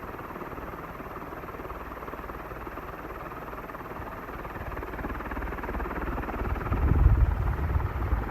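48-inch D.E.M.Co industrial ceiling fan with aluminium blades running on high speed, about 370 rpm: a steady whoosh of rushing air. A low rumble swells from about five seconds in and is loudest near the end.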